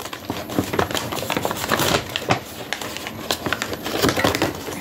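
Brown paper shopping bag rustling and crinkling in quick, irregular crackles as it is handled and items are pulled out from its bottom.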